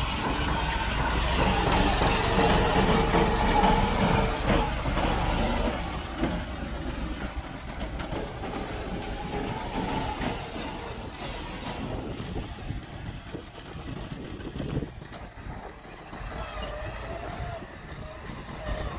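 Massey Ferguson 385 diesel tractor pulling a loaded trolley, its engine loudest in the first few seconds as it passes, then fading as it drives away.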